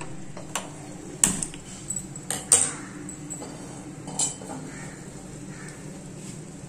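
Aluminium pressure-cooker pan knocking and clinking against a gas stove's burner as it is set down and shifted into place: a handful of separate sharp metallic knocks, the loudest about a second in and again about two and a half seconds in.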